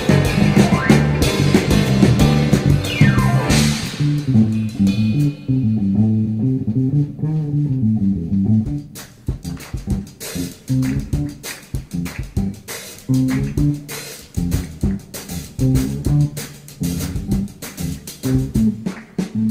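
Background music: a rock instrumental led by bass guitar and guitar. It is full for the first few seconds, with a falling slide, then thins to a bass line over drum hits.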